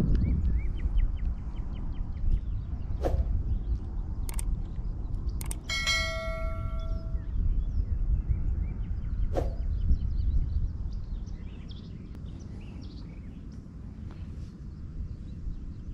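Wind rumbling steadily on the microphone, with a few sharp clicks. About six seconds in, a single bright bell-like ding rings for about a second and a half: the sound effect of the subscribe-button animation.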